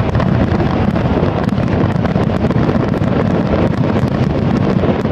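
Fireworks in a dense barrage: many shells bursting so close together that they merge into a continuous low rumble, with crackling throughout.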